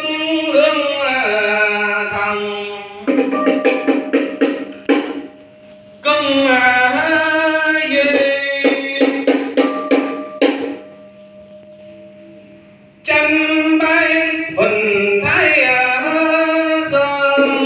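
Vietnamese ritual ceremonial music: a voice singing long phrases that bend in pitch, in three stretches, with quick percussion strokes between and under them. There is a short lull about two-thirds of the way through.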